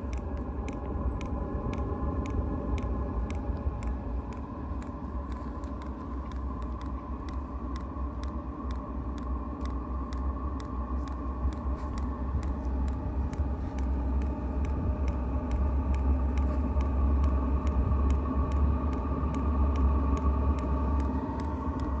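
Vevor diesel air heater running on homemade biodiesel: a steady low combustion rumble with the blower's hum, and the fuel dosing pump ticking about twice a second. The rumble grows louder in the second half as the burner settles in while the pump works the last air bubbles out of the fuel line.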